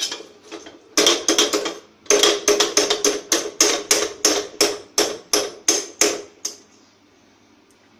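A metal utensil knocking repeatedly against a non-stick kadhai while thickened milk for kalakand is scraped and broken up in the pan. A few sharp knocks come about a second in, then a steady run of about three strikes a second that stops about six and a half seconds in.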